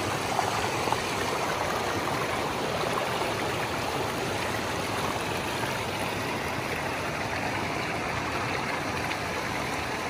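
Shallow rocky stream running over and between stones close by: a steady rush of flowing water.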